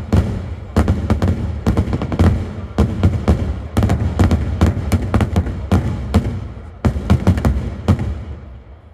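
Daytime fireworks: aerial shells bursting in rapid succession, sharp bangs several a second over a rolling low rumble, thinning out and fading near the end.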